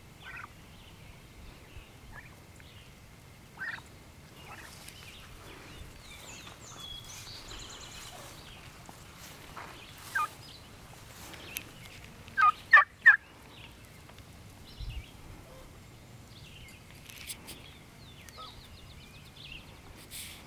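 Young white domestic turkeys calling: scattered short calls, with a loud group of three sharp calls about twelve seconds in.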